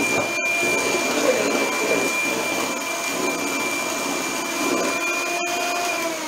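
Electric hand mixer beating a runny egg-and-sugar cake batter: a steady motor whine over the churning of the beaters in the liquid. Near the end the motor is switched off and its pitch falls as it winds down.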